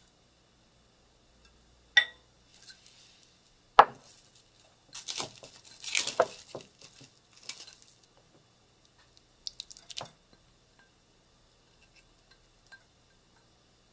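Kitchen utensils against glass bowls: a wire whisk and a spatula clink sharply twice, then scrape and tap while mashed pumpkin flesh is scraped from a small glass bowl. Two light taps follow near the end.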